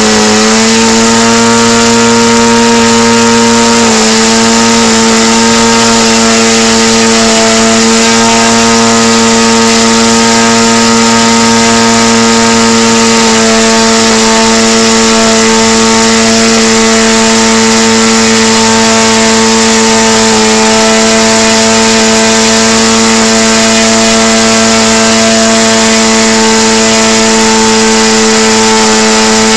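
Homelite 25 cc two-stroke gasoline engine, converted for radio-control model aircraft, running at a high, steady speed while driving an 18x6 propeller. The pitch dips slightly about four seconds in and then holds steady.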